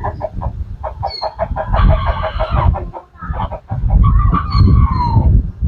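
Chickens clucking in quick repeated notes, then a rooster crows about four seconds in: one long call that drops in pitch at its end.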